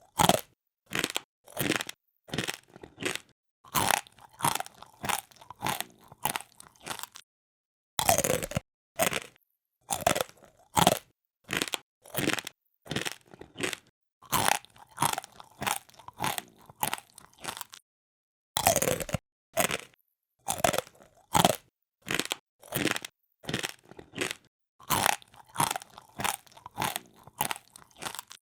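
Close-up of someone crunching a hard, crisp food, 'poripori' chewing. The crunches come about twice a second, with two short pauses.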